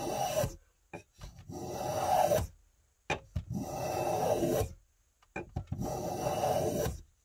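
Stanley No. 9 1/4 block plane shaving the edge of a wooden strip: one stroke ending about half a second in, then three more long strokes, each growing louder toward its end. Each stroke starts with a light knock as the plane is set on the wood. The freshly sharpened blade is taking shavings that curl into little rolls.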